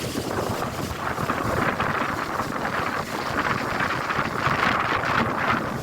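Storm wind gusting, rushing through trees and buffeting the microphone, swelling and easing from gust to gust.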